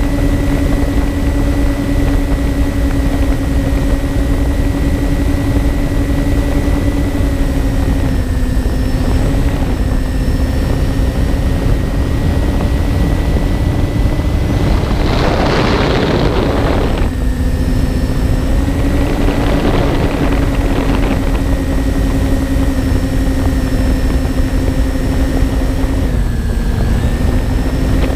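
Twin electric motors and propellers of a MyTwinDream FPV model plane running at a steady cruising pitch, heard from its onboard camera with wind rumbling over the microphone. The pitch dips briefly twice, and two bursts of louder rushing air come near the middle.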